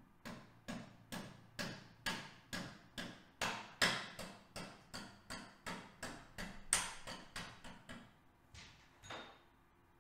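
Rubber mallet tapping the starter clutch shaft assembly into its seat in a Honda CBX 1000 engine's aluminium upper crankcase: a steady run of dull taps, two or three a second, ending with two slower taps near the end.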